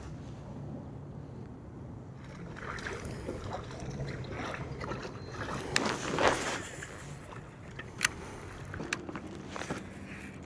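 Fishing kayak on the water: low water and hull noise, with a louder rush of noise about six seconds in and a few sharp clicks near the end.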